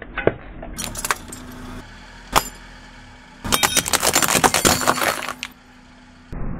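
Car tyre rolling over spiral compact fluorescent bulbs, the glass tubes cracking and shattering. A single sharp crack comes about two seconds in, then a dense run of crackling and popping glass lasting about two seconds.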